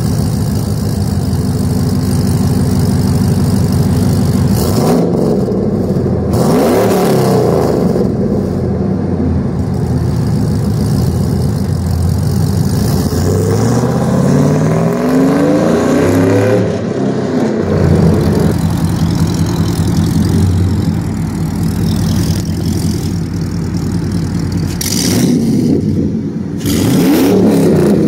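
2001 Chevrolet Silverado's 5.3L V8 running through long-tube headers, an X-pipe and side-exit dual exhaust, revving up hard several times and settling back to a steady run between revs. The rear tires spin during a burnout, with bursts of tire squeal during the hardest revs.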